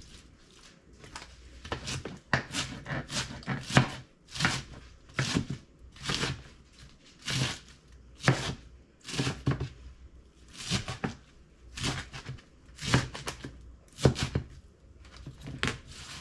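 Knife chopping lettuce: a run of short cuts, unevenly spaced at about one or two a second, starting about two seconds in.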